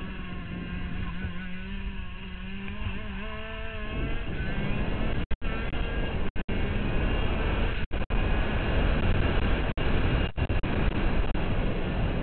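TM KV95 125cc two-stroke kart engine heard onboard, its note climbing as it accelerates out of a corner. About four seconds in it gets louder and runs hard down the straight, with the sound cutting out for an instant several times.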